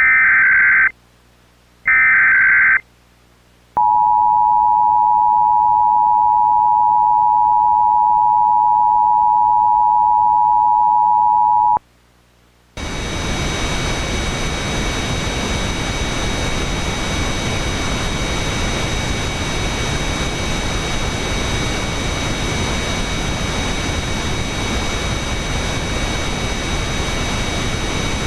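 Emergency Alert System broadcast: the last two of three short, screechy SAME header data bursts, then the EAS two-tone attention signal held steady for about eight seconds. After a brief pause, loud steady static hiss with a few faint high whistling tones takes over.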